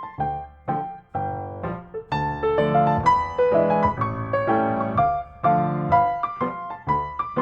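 Background piano music: a series of struck notes and chords, each fading after it is played.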